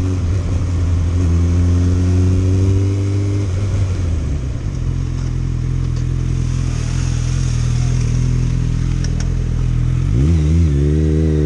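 Suzuki GSX650F motorcycle's inline-four engine running under way, its pitch rising a little at first and then settling lower. A steady rushing hiss runs over it. Near the end the engine pitch dips and climbs quickly as the rider reacts to a car pulling out.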